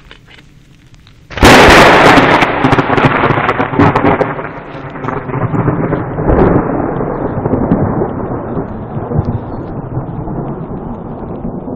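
Thunder from a lightning strike: a sudden, very loud crack about a second and a half in, then a long rolling rumble that swells again a couple of times and slowly dies away.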